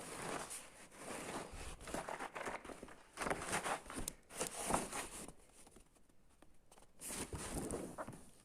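Irregular rustling and handling of packaging in short noisy bursts with small knocks and clicks, dropping quieter for a moment about six seconds in.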